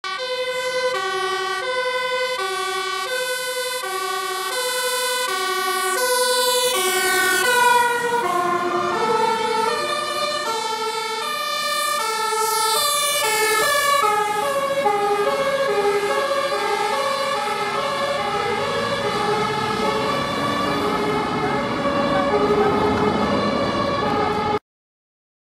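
Two-tone sirens of Dutch fire engines, alternating high and low about once a second. About eight seconds in the pitch drops as the first truck passes, and a second siren carries on over rising truck engine noise.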